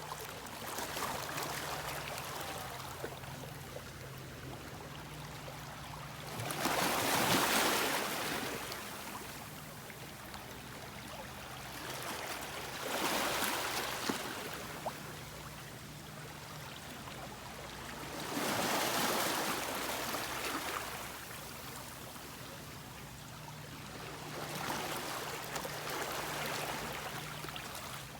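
Ocean waves breaking and washing on a shore, swelling up about every six seconds over a steady rush of surf.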